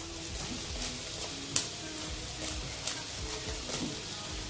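Chopped vegetables sizzling in oil in a frying pan while a black pepper grinder is twisted over it, with scattered sharp clicks, the loudest about one and a half seconds in.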